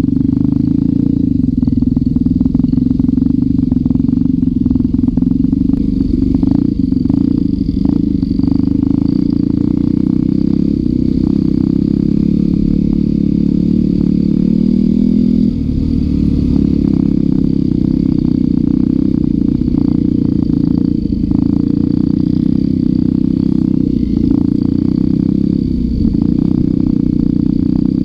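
Dirt bike engine running steadily under throttle while being ridden along a gravel trail, its pitch shifting slightly with the throttle and briefly dropping about halfway through, with short rattles throughout.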